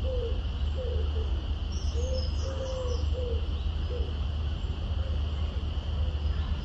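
Soft, short cooing notes repeated in phrases of four or five, about two a second, fading out after the first few seconds. Under them run a steady low hum and a steady high whine.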